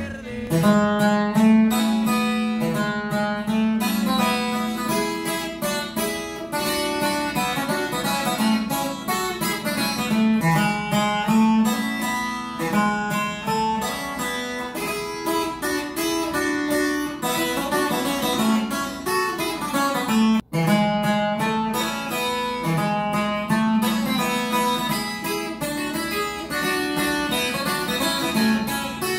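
Left-handed Takamine Pro Series 12-string acoustic guitar played unplugged: a quick, picked requinto lead melody. About 20 seconds in there is a brief break, and the same passage carries on on a second 12-string Takamine.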